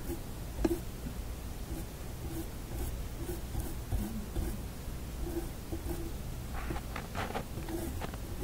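Small brush scrubbing the terminal end of a coil form soaked in contact cleaner to clean off dirt: a light, scratchy rubbing, with a few stronger strokes near the end.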